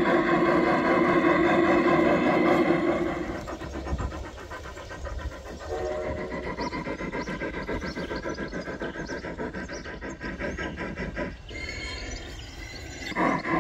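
Large-scale Bachmann K-27 model steam locomotive and freight cars running on garden-railway track, with a rhythmic clicking of about four or five beats a second. For the first three seconds a loud, steady chord of held tones sounds over it, then drops away.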